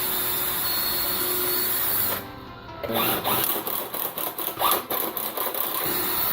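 Power drill running as a 1/8 inch bit bores pilot holes into 2x4 wood: a steady whir for about two seconds, a short pause, then the drill running again about three seconds in with a rattling, clicking cut.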